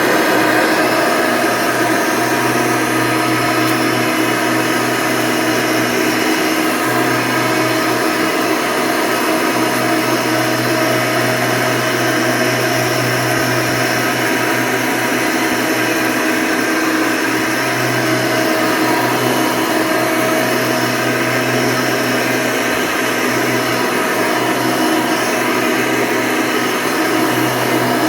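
1992 Hoover Legacy II upright vacuum cleaner, fitted with a 20-bladed fan, running steadily: a whine over a rush of air.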